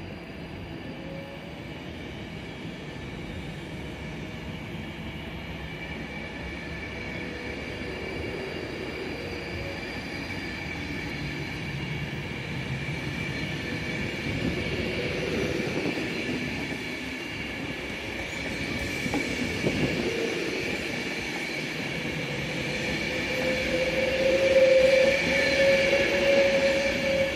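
Class 390 Pendolino electric train pulling out and accelerating away. A steady high whine is joined by a lower whine that rises gently in pitch and grows louder toward the end.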